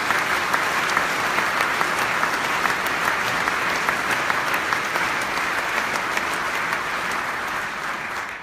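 Large audience applauding steadily, the clapping dying away at the very end.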